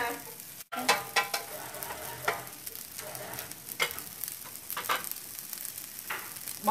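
Fried rice sizzling in a nonstick pan, with occasional scrapes and knocks of a wooden spatula turning it. The sound cuts out for a moment under a second in.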